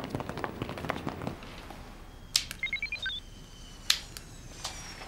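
Footsteps of several people walking briskly on a hard floor for about the first second and a half. Then a click and a quick run of short electronic beeps stepping up in pitch from a handheld electronic device, another click, and a faint steady high electronic whine.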